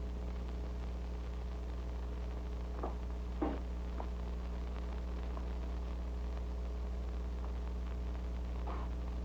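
Steady mains hum and hiss of an old television soundtrack, with a few faint soft knocks, the clearest about three and a half seconds in.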